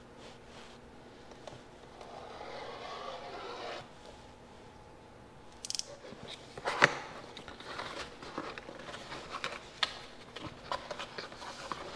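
Shrink-wrap being peeled off a cardboard product box with a soft rustle, then the cardboard box being opened. A sharp knock about seven seconds in is followed by many small clicks and crackles of cardboard and plastic.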